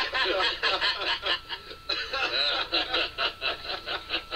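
Men laughing and snickering in a film soundtrack, a quick run of ha-ha pulses, played back through a TV speaker.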